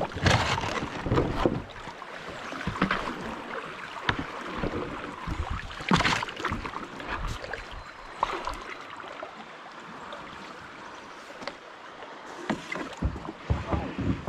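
Stand-up paddleboard paddle dipping and splashing in river water, in irregular strokes with a few sharper splashes and knocks.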